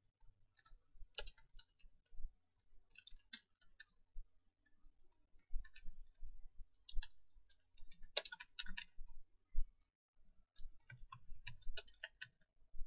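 Computer keyboard keys clicking as text is typed, in short irregular runs of keystrokes with pauses between them.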